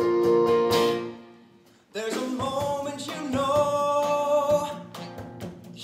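Live stage-musical music from a rock band with voices: a held chord fades away, and after a short silent gap about two seconds in, band and voices come in together on a new sustained chord with drum hits.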